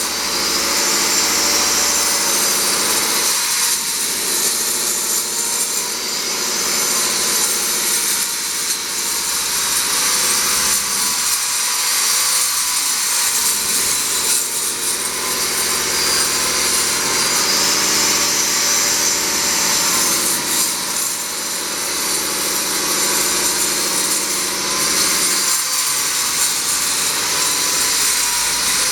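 Angle grinder with a carbide-tipped disc cutting a channel into a brick wall for water pipes, running steadily with a high grinding hiss and a few brief dips as the cut goes on.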